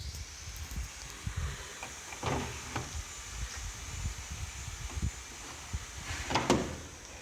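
Handling noises: irregular soft knocks, thuds and rubbing, the loudest about two seconds in and again about six and a half seconds in, over a faint steady high hiss.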